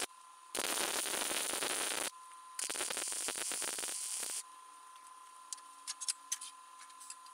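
Wire-feed (MIG) welder arc crackling in two bursts of about one and a half to two seconds each, laying welds on a steel bending-brake leaf. These are followed by a few short, light metal clicks.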